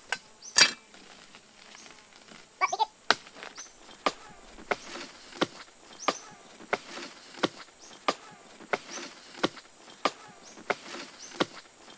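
Steady chopping: sharp wooden knocks from a hand tool striking wood, about one every two-thirds of a second. A louder knock and a quick cluster of hits come in the first three seconds.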